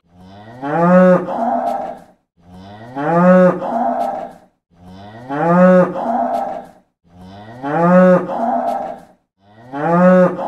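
Cow mooing five times, the same moo repeated about every two and a half seconds, each rising in pitch and then held.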